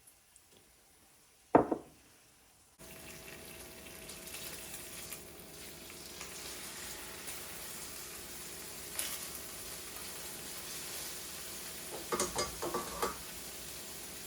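Chicken browning in oil in a frying pan, sizzling steadily from about three seconds in, with a few light clinks near the end. Before the sizzling starts there is one sharp knock.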